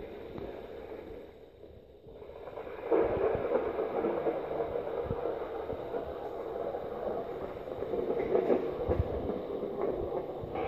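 Steady rumbling noise that gets louder about three seconds in and then holds level.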